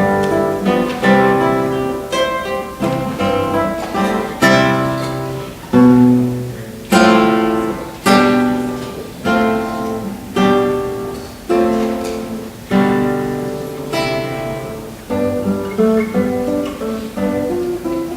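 Acoustic guitar playing slow instrumental music, plucked notes and strummed chords that ring and fade, with a run of fuller chords struck about once a second in the middle.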